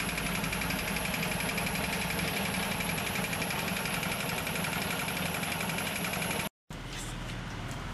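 A small engine running steadily with an even, fast pulse. It cuts off abruptly about six and a half seconds in, and a quieter, lower hum follows.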